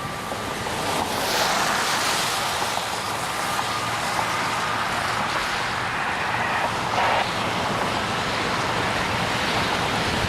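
A steady rushing noise of storm water and heavy rain, swelling about a second in and holding steady.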